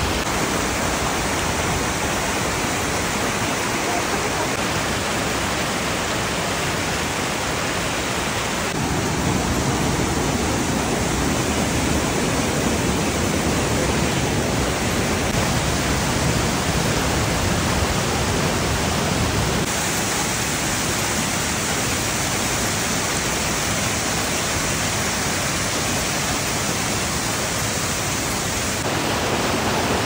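Mountain stream rushing and splashing over rocks in small white-water cascades, a loud steady rush of water. Its tone shifts abruptly a few times, deeper for a while and then brighter.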